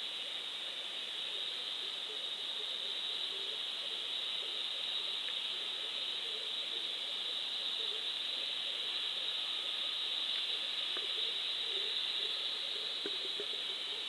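Steady hiss of an underwater fishing camera recording from inside its sealed housing, with faint low blips and a few small ticks.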